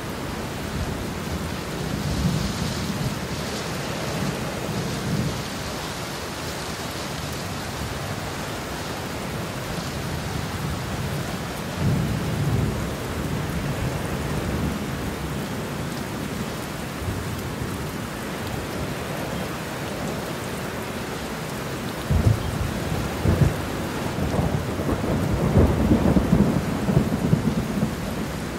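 Steady rain with thunder rumbling low several times, the strongest rolls of thunder coming in the last third.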